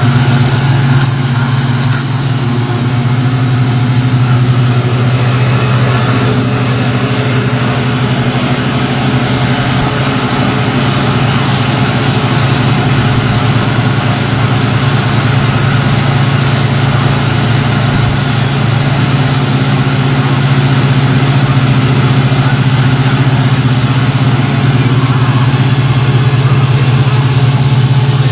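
Diesel engine of a slipform curb-and-gutter machine running steadily as the machine extrudes a concrete curb: a loud, even drone with a strong low hum.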